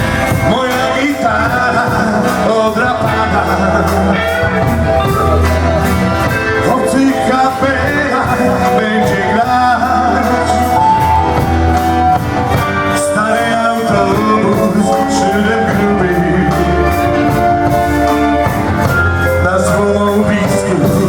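Rock music: an instrumental passage with electric guitar, bass and a steady drum beat.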